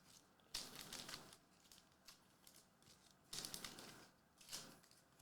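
Faint rustling of baseball trading cards and their pack wrappers being handled, in three short bursts.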